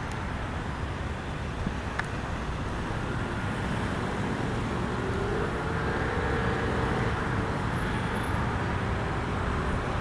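Cessna 172's single piston engine and propeller droning as the light plane flies low overhead, swelling a little louder about halfway through, over a steady low rumble.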